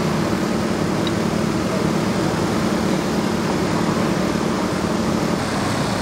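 Steady low engine drone over a haze of road noise, even and unbroken throughout.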